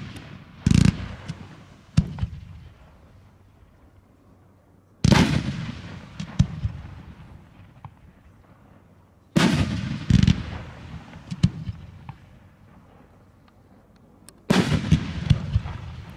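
Aerial firework shells bursting: sharp booms in clusters of two or three about every four to five seconds, each trailing off in a long echoing rumble.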